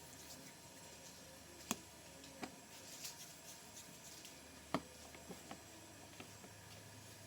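Quiet room with a few sharp, light clicks and taps at irregular spacing, two of them louder than the rest, over a faint steady background hum.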